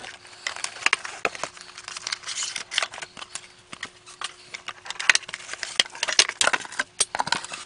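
Plastic bags and packaging being handled while parts are lifted out of a cardboard box: a dense, irregular run of crinkling crackles and sharp clicks, with cables and packed parts knocking against the cardboard.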